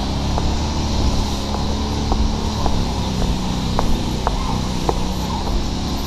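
Footsteps going down concrete garden steps, light taps about twice a second, over a steady low rumble on the microphone.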